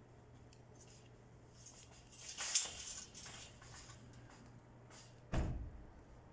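Electric folding-arm awning running out: its motor gives a faint steady hum, the arms and frame rattle about two and a half seconds in, and there is a dull knock about five and a half seconds in.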